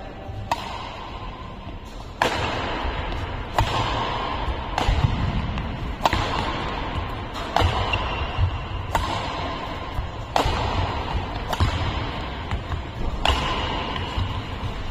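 Badminton rally: sharp racket-on-shuttlecock hits traded back and forth about every second and a half, echoing in a large hall, over background music.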